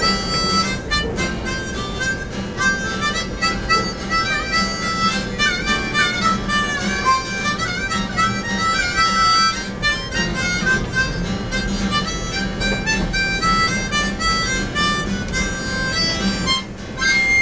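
Harmonica playing a lively run of melody notes over a steady low tone: the closing instrumental of a folk ballad, which stops shortly before the end.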